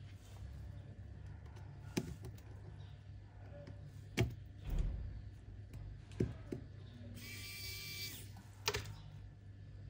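Faint, scattered clicks and taps of small tools and parts being handled while an iPhone is put back together, five sharp ones a second or two apart, over a steady low hum. About seven seconds in, a brief hiss with a faint whine lasts about a second.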